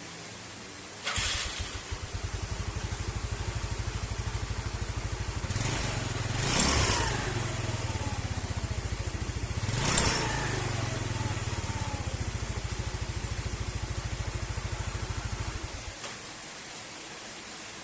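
Yamaha Mio Sporty scooter engine started about a second in, running at a steady pulsing idle, blipped twice with a falling whine after each, then switched off near the end.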